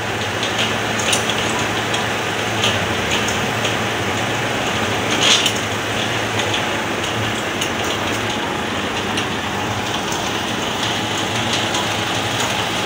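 Refrigeration unit of a reefer van running on plug-in electric power, a steady fan rush with a low hum, having just switched on. A brief knock about five seconds in.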